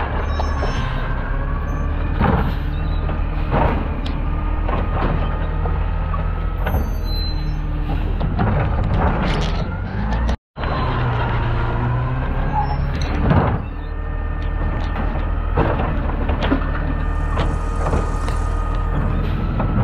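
Natural-gas Waste Management side-loader garbage truck running, with a steady hydraulic whine and knocks and clunks as its automated arm grabs, lifts and dumps a blue recycling cart. The sound breaks off for a moment about halfway through.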